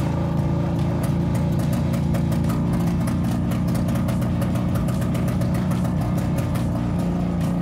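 Lada inline-four engine converted to two-stroke, running roughly at low revs: a steady low drone broken by rapid, irregular popping. It is barely keeping itself running, only trying to work at low revs.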